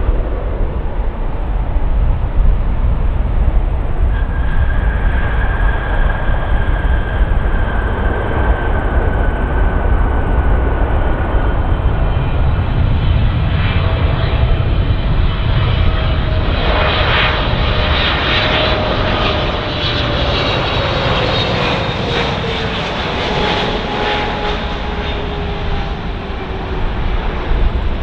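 Jet airliner landing, its engines running with a steady low rumble. A high whine enters about four seconds in and slowly falls in pitch, a lower whine follows about halfway through and also falls, and a louder rush of noise swells in the second half.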